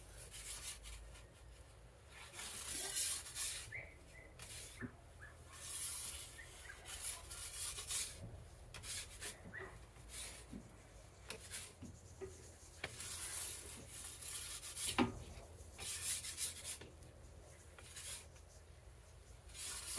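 Metal turning peel scraping and rubbing across the pizza oven's stone floor in repeated short strokes as it is worked under the pizza, with a few light knocks.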